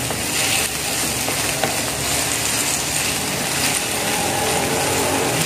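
Onion, tomato and green chili sizzling in hot oil in a nonstick frying pan, with a wooden spatula scraping and stirring them, a steady frying hiss with light scrapes through it.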